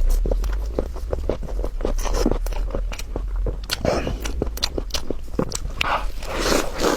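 A person chewing and biting food close to the microphone: many short, sharp mouth clicks, with louder bites about four seconds in and again near the end, over a steady low hum.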